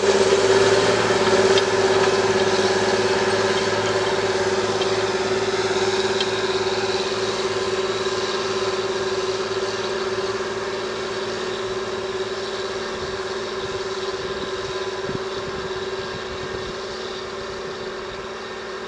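John Deere 8120 tractor's six-cylinder diesel engine running steadily under load while pulling a plough, its note constant and growing gradually fainter.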